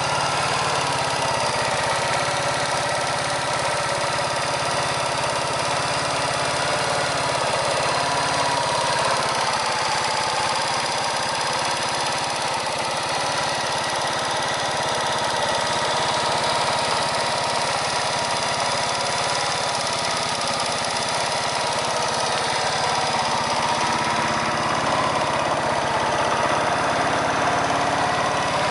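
1994 Yamaha SR125's single-cylinder four-stroke engine idling steadily in neutral.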